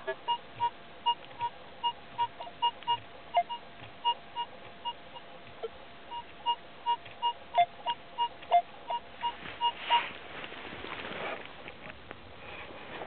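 Minelab X-Terra 705 metal detector sounding short beeping target tones as its coil sweeps over grass. Most beeps are on one mid pitch, about two to three a second, with a few lower tones among them. The beeps stop about ten seconds in, and rustling in the grass takes over.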